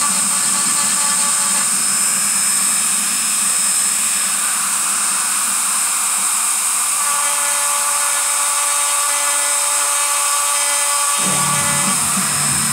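Dremel 3000 rotary tool running at high speed, its carving bit grinding into the bone of a human skull: a steady, high-pitched whine.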